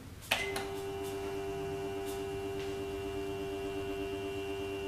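A click about a third of a second in, then the Casio SE-G1 cash register's built-in thermal printer running with a steady hum as it prints an X (interim sales) report.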